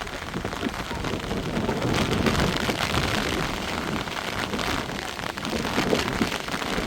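Heavy rain falling steadily, a dense hiss made of many small ticks of drops.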